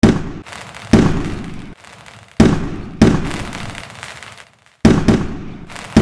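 Aerial fireworks bursting close by: six loud bangs at uneven intervals, a second or so apart, each trailing off before the next.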